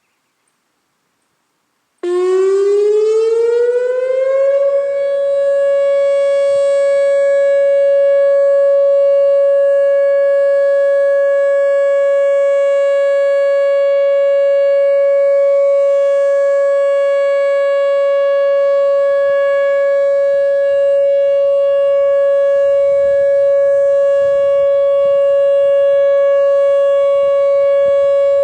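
Whelen WPS-2910 electronic outdoor warning siren starting its steady alert signal about two seconds in: the tone glides up for a couple of seconds, then holds one steady, loud pitch.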